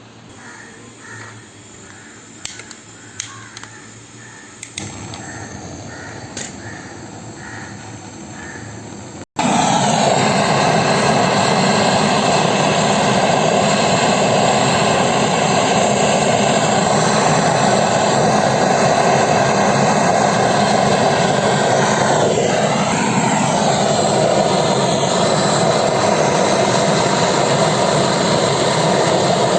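Split air conditioner's compressor unit running with a loud, steady mechanical hum and whine that starts suddenly about nine seconds in. It is the noise the title blames on a failing compressor. Before it, a quieter background with short chirps repeating about twice a second.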